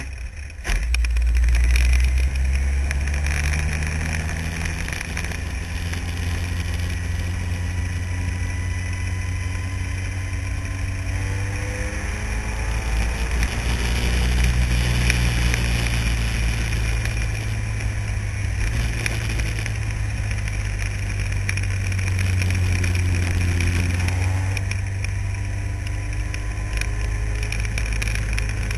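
Renault-engined formula car's engine running hard on track, heard onboard; its pitch climbs and drops back repeatedly as it accelerates and shifts.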